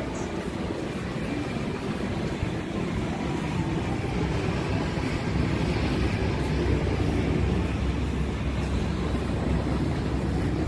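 Steady low rumble of passing vehicles, swelling about halfway through.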